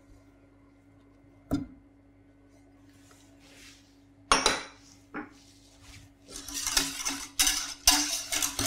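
Wire whisk beating in a stainless steel saucepan, rapid clinking and scraping that sets in a little past halfway, mixing invert sugar into warm milk and cream. Before it, a single sharp clatter about four seconds in, over a faint steady hum.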